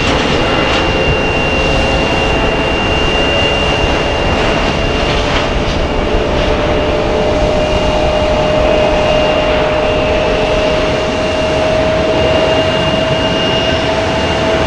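Boeing 737 MAX's CFM LEAP-1B turbofan engines running at low taxi power as the airliner rolls out after landing. A steady rushing noise carries a high whine and a lower tone that rises slightly in pitch.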